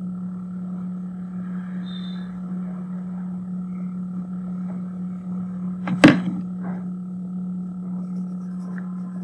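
A steady low hum, with one sharp knock about six seconds in.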